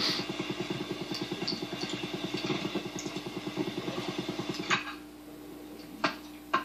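A small motor running with a rapid, even pulse. It cuts off with a click about five seconds in, leaving a faint steady hum, and two sharp clicks follow.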